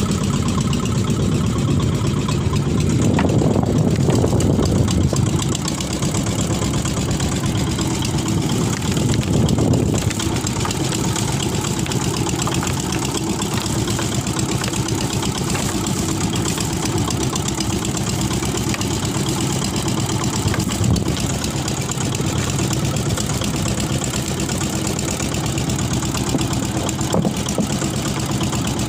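Small fishing boat's engine running steadily, a little louder for a couple of seconds near the start.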